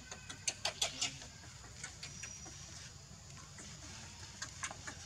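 Baby monkey giving short, high-pitched squeaking cries, a quick cluster in the first second, then a few more scattered after.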